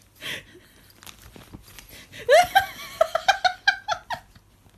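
A person laughing: a short breathy laugh at the start, then about halfway through a quick run of high-pitched giggles that lasts about two seconds.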